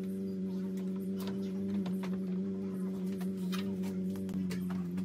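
Light, scattered clicks from a DeWalt DWE7485 table saw's blade height and tilt handwheel being cranked, turning smoothly. Underneath is a steady low hum of several held tones.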